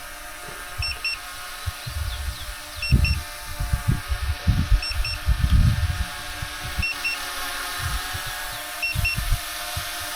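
Drone low-battery warning beeping in short double beeps about every two seconds during Return to Home. Strong wind gusts buffet the microphone in uneven low rumbles throughout.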